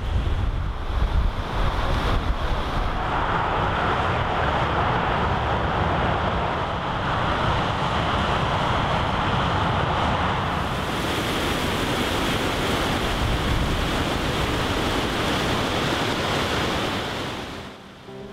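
A river in spate rushing through the arches of a stone bridge, a steady noise of churning white water, with wind buffeting the microphone in the first couple of seconds. The sound changes about ten seconds in and drops away just before the end.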